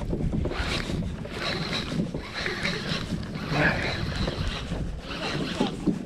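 Wind buffeting the microphone over water lapping and sloshing against a kayak, in uneven gusts.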